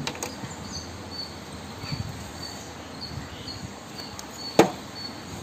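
Quiet background with a short high chirp repeating about twice a second, and one sharp click about four and a half seconds in.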